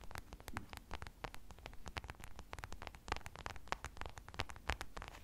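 A knitted fabric slipper with its paper label rubbed and pressed against a foam microphone windscreen, making close, rapid, irregular crackling and scratching.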